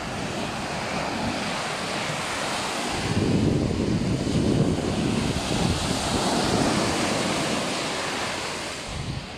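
Ocean waves washing onto a sandy beach, with wind buffeting the microphone. The low rumble of wind and surf grows louder about three seconds in and eases off near the end.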